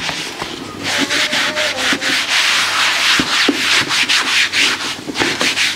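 A sponge with detergent scrubbing back and forth over the moulded plastic body of a handbag, a quick run of rubbing strokes.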